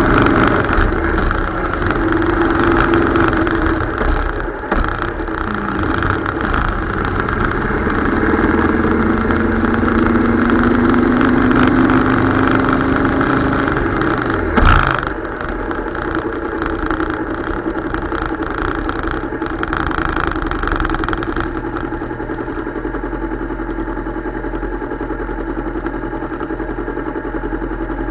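Motorcycle engine running on the move, its pitch rising slowly for several seconds as it speeds up. About halfway through there is a short sharp thump, after which the engine runs a little quieter and steadier.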